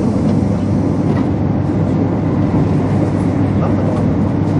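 Running noise of a 200 series Shinkansen train at speed, heard inside the passenger cabin: a loud, steady rumble.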